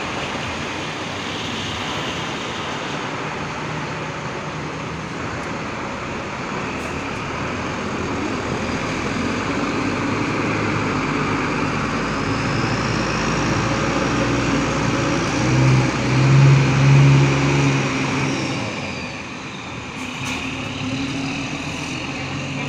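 Diesel engine of a large intercity coach running as the bus pulls slowly away close by. The engine note swells, louder and deeper, about two-thirds of the way in as the rear engine bay passes, then fades as the coach drives off.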